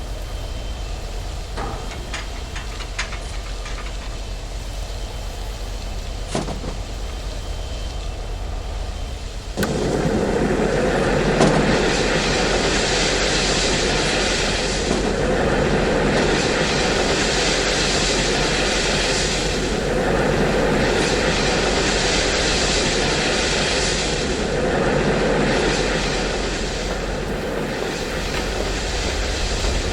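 Hand-made foley of a moving steam train: a low steady rumble with a few scattered clicks, then a loud rushing noise that sets in suddenly about ten seconds in and carries on in slow surges.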